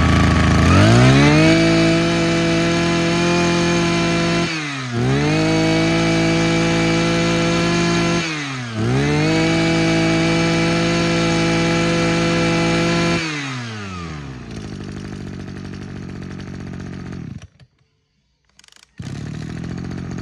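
Robin LB2310 23cc two-stroke brush cutter engine running, revved up to full speed and let back down three times, each burst held for a few seconds, then idling. Near the end it stops briefly and then idles again.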